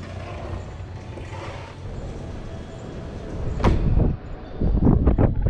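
Steady low rumble, then a single loud knock a little past halfway, followed by gusts of wind buffeting the microphone.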